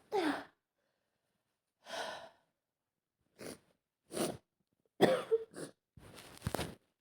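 A woman with a heavy head cold sneezing, sniffling and catching her breath: a string of short bursts, the loudest a sharp sneeze about five seconds in.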